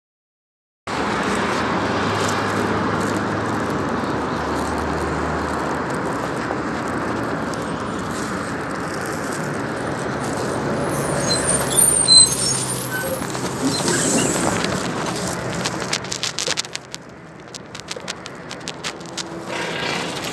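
Roadside traffic noise with a PAZ 32054 city bus's engine as it pulls in to the stop, with brief high squeaks as it comes to a halt. It starts about a second in. Later it drops to quieter clicks and knocks as a passenger boards.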